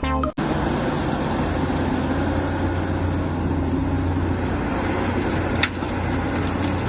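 A vehicle engine running steadily with a constant low hum and a brief click about five and a half seconds in.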